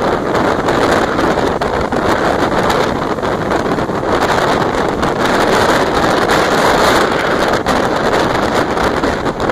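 Steady, loud rush of wind buffeting the microphone over the rolling noise of a moving train, heard from aboard the train.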